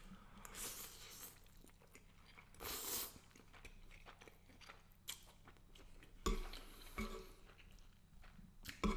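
Close-miked chewing of garlic butter shrimp and angel hair pasta, with two spells of louder wet mouth noise in the first few seconds. Two sharp clicks come later, about six seconds in and again near the end.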